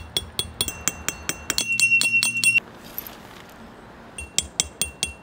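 Background music with a quick, even plinking beat of bell-like metallic clicks over a soft pulsing bass; it breaks off abruptly about two and a half seconds in and starts again near the end.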